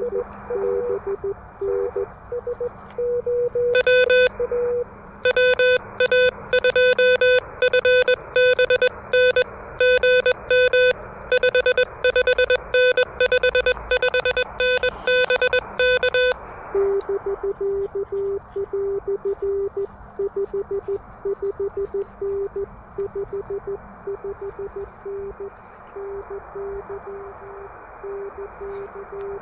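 Morse code from an Elecraft KH1 handheld CW transceiver. Received code beeps in the receiver's band hiss. From about four seconds to sixteen the operator sends, a louder, brighter keyed sidetone. After that another station's code answers in the hiss.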